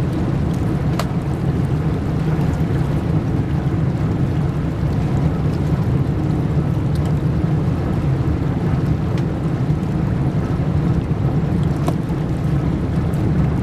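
Steady low rumble of an inland cargo barge under way on a river, with wind on the microphone.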